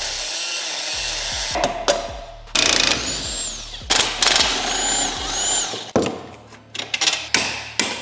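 Cordless DeWalt impact wrench running in bursts on the anti-roll bar drop link nut, with a high squeal now and then. From about six seconds in, a quick run of sharp hammer strikes follows.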